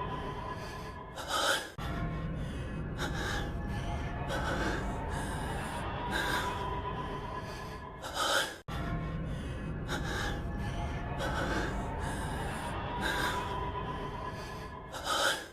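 A male anime voice breathing heavily: sharp, gasping breaths about every second and a half over a faint steady background. The short loop restarts twice with a sudden brief dropout.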